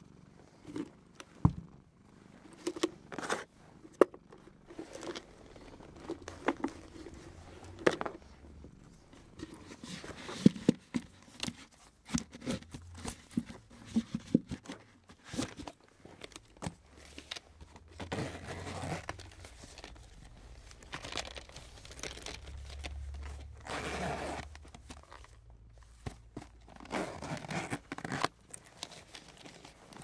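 Close-miked handling of vintage camera gear: scattered sharp clicks and taps, then longer rubbing and crinkling swells in the second half.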